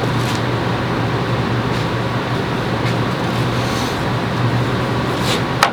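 Steady droning background noise with a constant low hum, and a sharp click near the end.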